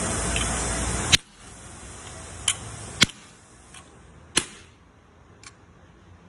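A hammer striking a steel punch held on a small brass piece laid on a wooden block: a few sharp metallic strikes a second or so apart, with fainter taps between. A steady hiss cuts off suddenly about a second in.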